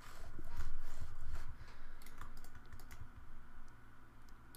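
Computer keyboard keys pressed in an irregular series of light clicks, busiest in the first second and a half.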